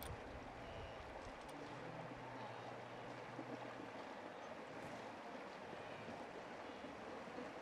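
Faint, steady rush of river water, with no distinct splashes.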